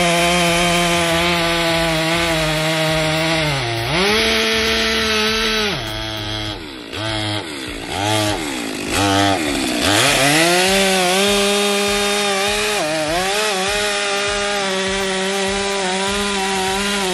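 Two-stroke chainsaw cutting oak, running at high revs, its engine note dropping and climbing back several times between about four and thirteen seconds in, then steady again.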